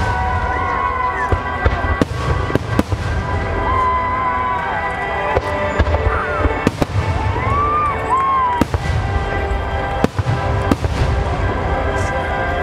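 Aerial firework shells bursting in quick succession: a dozen or so sharp bangs over a continuous low rumble, with whistling tones that glide up and down.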